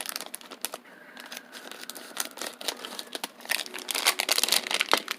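A small plastic toy bag crinkling and tearing as it is opened by hand, in an irregular run of crackles and snaps.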